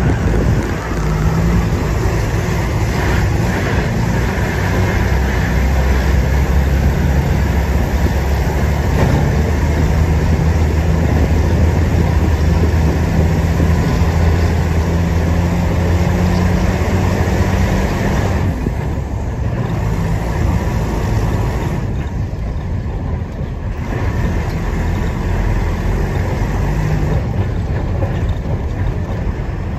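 Bus engine running steadily with the rumble and hiss of tyres on a rough gravel road, heard from on board; the road hiss eases for a few seconds past the middle.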